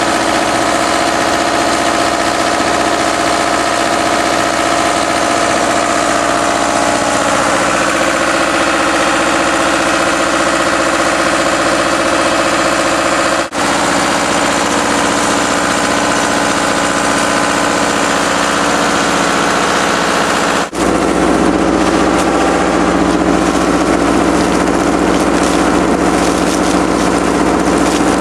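Engine-driven Instaprime vacuum-assisted self-priming pump running steadily while its suction hose draws water and air from a small, shallow sump. After the break about 21 seconds in, a noisier hiss of air and water being sucked in rides over the engine.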